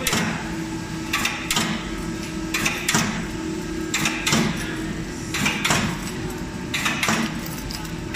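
Automatic paratha production line running: a steady machine hum with a pair of sharp metallic knocks repeating about every 1.3 seconds, the line's mechanism cycling.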